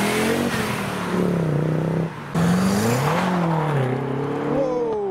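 Audi Quattro's five-cylinder engine pulling away, its revs rising and then dropping at a gear change. About two seconds in it cuts to another car accelerating away, its engine note rising and falling through the gears.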